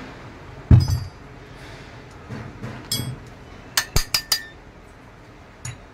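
A metal tool knocking and clinking against the parts of a car AC compressor clutch being taken apart: a heavy thump just under a second in, then a quick run of four sharp metallic clinks around the middle and one more near the end.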